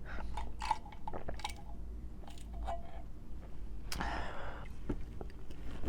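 Close-miked eating sounds: chewing, with scattered small mouth clicks and smacks over a faint low hum, and a brief hiss about four seconds in.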